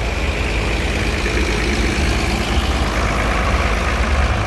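A large tractor engine running steadily, with a low, even hum.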